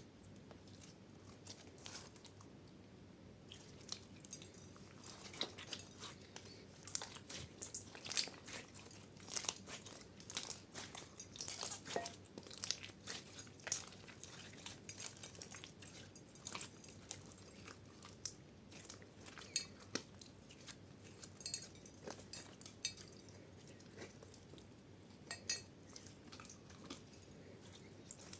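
Slime being mixed and squished, giving a dense run of irregular sharp crackling pops and clicks that thin out toward the end.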